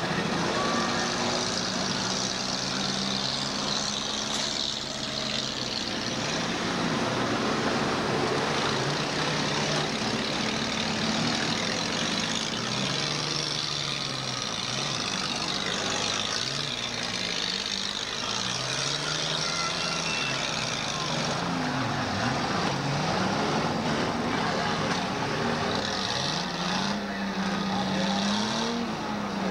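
Several demolition derby cars' engines running at once, revving up and down over and over so that their pitches rise and fall across one another.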